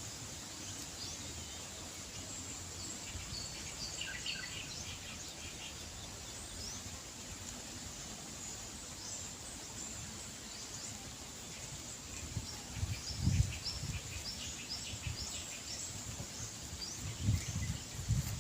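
Outdoor ambience: small birds chirping in short scattered calls over a steady background hiss. Low rumbles come twice, about two-thirds of the way in and near the end.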